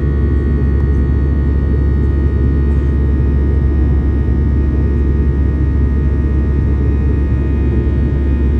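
Airbus A320-214's CFM56 turbofan engines at climb thrust, heard inside the cabin: a steady deep rumble with a constant hum of fixed tones above it.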